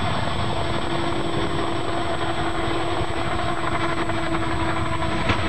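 Helicopter running with a steady whine over rotor and engine noise as it banks steeply and goes down in a crash.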